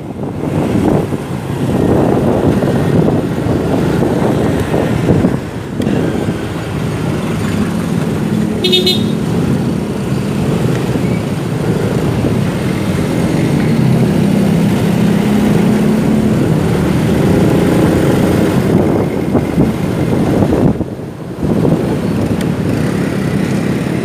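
Rush-hour street traffic heard from a moving motorcycle: a steady mix of engine and road noise from the bike and the vehicles around it, with one brief, high horn toot about nine seconds in.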